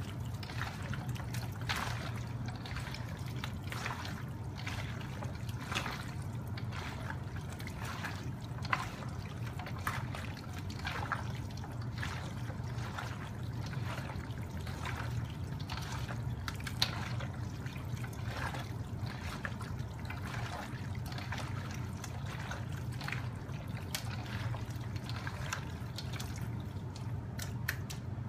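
Hands squishing and squelching diced chicken, sliced onion and an oily yogurt marinade in a stainless steel bowl: irregular wet squelches following one another throughout, over a steady low hum.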